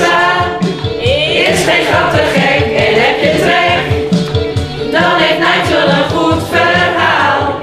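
A mixed group of adult voices singing a song together in Dutch, over steady low accompaniment notes.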